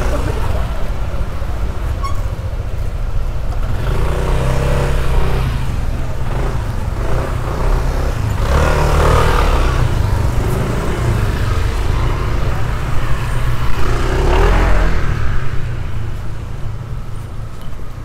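Street traffic, motorbikes and cars driving past, over a steady low rumble; louder passes about 9 and 14 seconds in.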